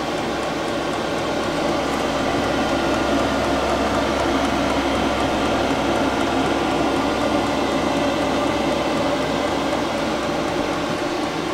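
5 kW diesel air parking heater running steadily: its blower makes an even whoosh, like a household fan on medium or high speed, and is not especially loud.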